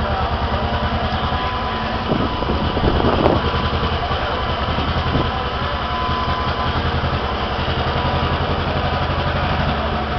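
An engine idling steadily close by, a fast even throb, with a brief louder noisy swell about three seconds in.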